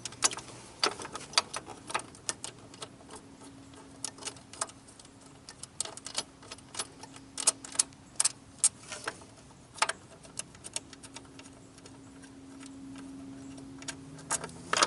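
Irregular sharp metallic clicks and taps of hand tools and small bolts, some in quick clusters, as the loosened bolts are worked out of a motorcycle seat latch. A faint steady hum sits underneath from about three seconds in.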